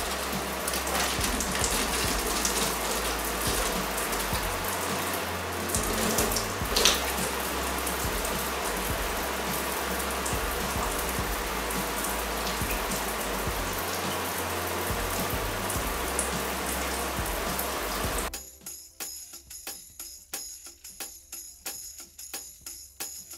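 Bristan Smile electric shower running: a steady hiss of water spraying from the handset onto the tiled wall, with one sharp knock about seven seconds in. The spray cuts off suddenly about eighteen seconds in.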